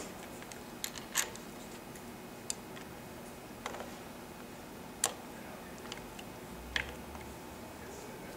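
Small sharp metallic clicks and ticks, about seven at irregular intervals, from a long screwdriver working loose the clamp screws of a Harley-Davidson front brake master cylinder on the handlebar.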